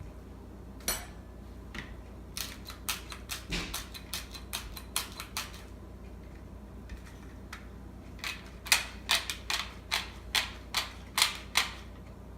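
Two runs of sharp kitchen clicks or taps, about three a second, the second run louder.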